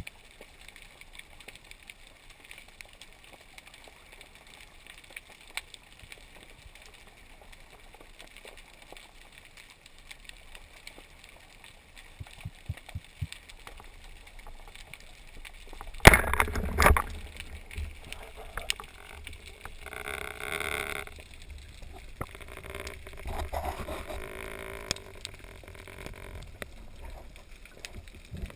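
Underwater sound muffled through a camera housing: scattered small clicks, then about sixteen seconds in a sudden loud bang of a speargun being fired, the shot that misses a gilthead bream, followed by bubbling and water rushing noise.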